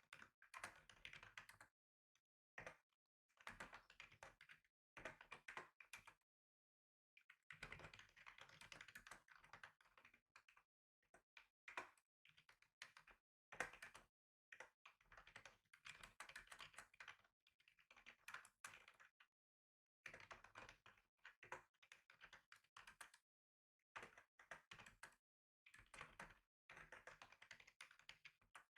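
Typing on a computer keyboard, faint: runs of quick keystrokes broken by short pauses every few seconds.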